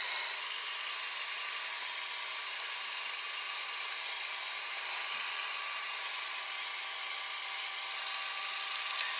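3D-printed peristaltic pump driven by an IKEA FIXA cordless drill's motor and planetary gearbox, running steadily at a 35% PWM duty cycle while pumping water. The recording is sped up, so it comes across as a steady, high-pitched whir.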